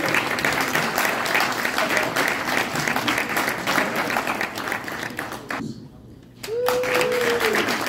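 Audience applauding and clapping. The applause cuts off abruptly about six seconds in, then comes back with one voice calling out in a long, drawn-out tone.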